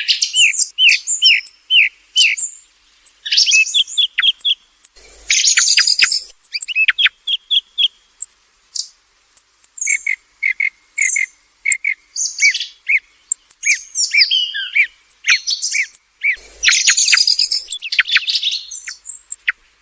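Song thrush singing: a loud, varied series of whistled and chirping phrases, many of them repeated several times in quick succession, with brief pauses between phrases.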